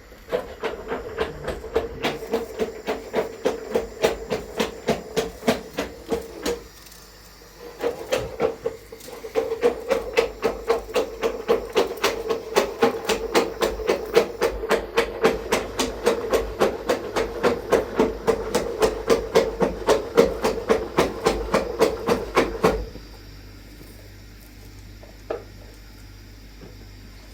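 Rapid, regular knocking, about three to four blows a second, with a short break about seven seconds in. The knocking stops a few seconds before the end, leaving a low steady background with one faint click.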